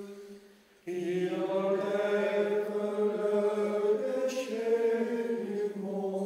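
Slow liturgical chant sung by voices in long held notes; one phrase fades out and the next begins just under a second in.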